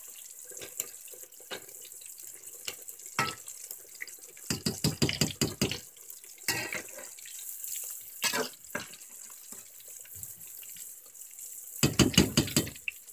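Breaded fish pieces deep-frying in a large pot of hot oil: a steady sizzling hiss, with several spells of louder crackling as a slotted skimmer stirs the pieces, the loudest about a third of the way in and near the end.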